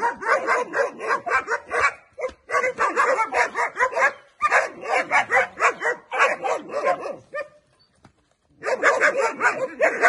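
German Shepherd puppies yapping and barking in a rapid, overlapping chorus, several at once. There are brief breaks about 2 and 4 seconds in, and a pause of about a second roughly three-quarters of the way through before the yapping starts again.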